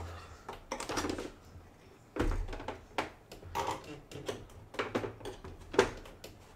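Irregular clicks and knocks of plastic model-kit parts being handled and pressed together as a clear plastic submarine hull's deck is worked into place.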